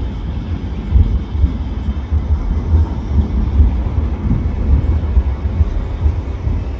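CAF Urbos A35 tram passing close by at low speed: a low, uneven rumble of wheels on the rails and running gear.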